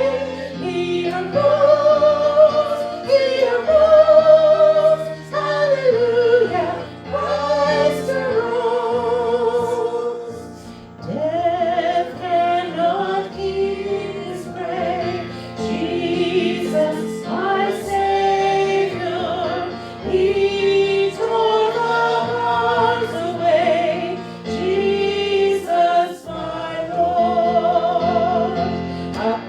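Sung worship music: a voice singing a melody with strong vibrato over held accompaniment chords.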